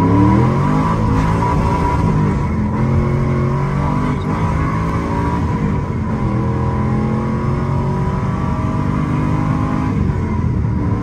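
Pontiac GTO's V8 engine under hard acceleration, a full-throttle pull. Its pitch climbs steeply at first, then steps and climbs again through the run.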